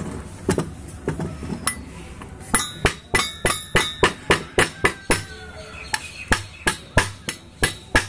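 Metal striking the housing of a TVS Locus alternator to knock its two halves apart. A few scattered knocks come first, then a steady run of about three blows a second from a couple of seconds in.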